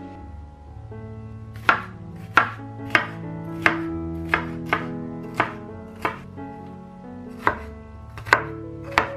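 Sharp knocks at an irregular pace, about a dozen in all, over sustained musical notes.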